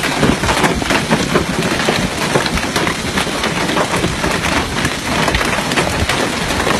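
Hail pelting the ground in a heavy hailstorm: a dense, unbroken clatter of countless small impacts.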